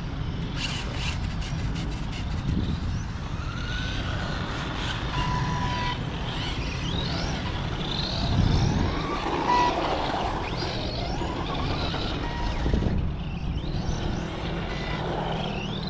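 Arrma Vorteks 1/10 electric RC truck driven hard on asphalt: the motor's whine rises and falls in pitch again and again as the truck accelerates and brakes through the turns, over a steady noise of tyres and air.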